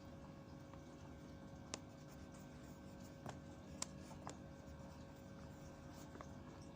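Faint room tone with a steady low hum, broken by a few light clicks or taps, four of them between about two and four and a half seconds in.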